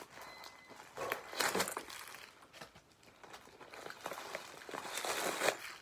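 Rustling and brushing from a canvas belt bag being handled and turned over in the hands, in two bouts, one about a second in and one near the end.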